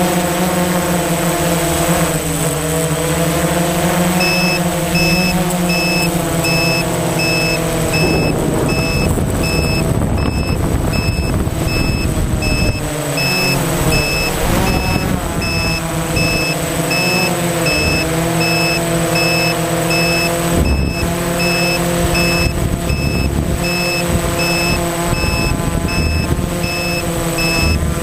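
DJI Phantom FC40 quadcopter's motors and propellers whining, rising and falling in pitch as the throttle changes, heard from the onboard camera. From about four seconds in, a high electronic beep repeats about twice a second.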